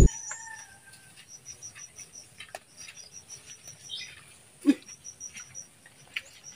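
Insects chirping in quiet plantation ambience: rapid strings of short high chirps that stop and start again. A single dull thump comes about four and a half seconds in.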